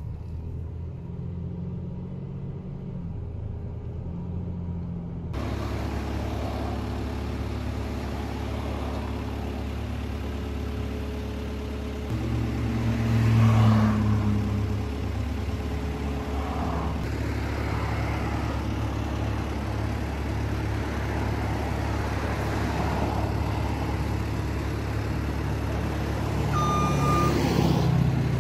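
Motor vehicle engine running steadily, stepping up sharply in level about five seconds in and swelling louder for a couple of seconds around the middle. A few short high beeps come near the end.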